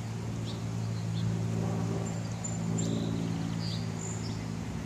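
A steady low mechanical hum made of several even tones, with faint, short, high bird chirps here and there.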